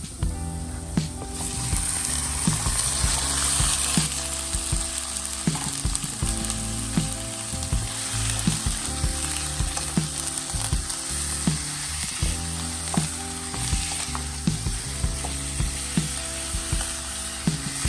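Food frying and sizzling in oil in a pan, the sizzle rising about a second and a half in, with frequent clicks of a utensil against the pan as it is stirred.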